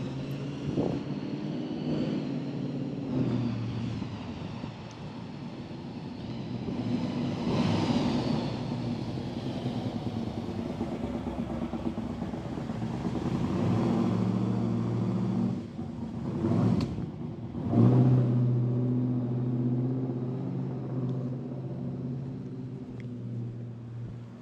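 Street traffic: car engines running and passing, their low hum rising and falling as vehicles come and go, loudest about three quarters of the way through.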